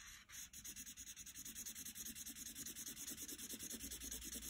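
Felt-tip Crayola marker scrubbing back and forth on paper while colouring in a large area: faint, quick, even rubbing strokes, about five a second, starting about half a second in.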